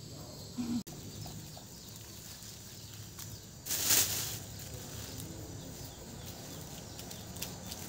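Rustling as lemongrass stalks are handled and pushed into a plastic sack, with one louder, half-second rustle about four seconds in.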